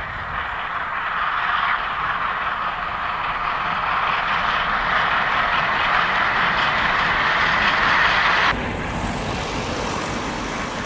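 SNCF 141 R steam locomotive working its passenger train past, a steady rushing noise of exhaust and rolling stock that grows louder as it nears. About eight and a half seconds in it cuts off suddenly to a quieter, more distant train sound.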